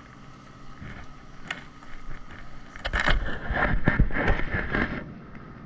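Jet ski engine idling steadily. About three seconds in, a loud stretch of irregular knocking and rustling lasts about two seconds.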